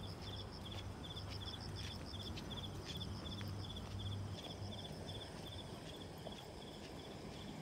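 Faint, regular insect chirping: a short high trill repeated about two to three times a second, over a low steady outdoor rumble.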